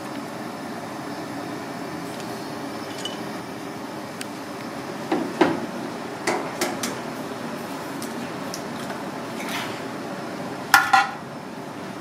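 Kitchen clatter: a steady hiss of background noise under scattered light clinks and taps of utensils against a pot and dishes, ending in a louder double clink with a brief ring near the end.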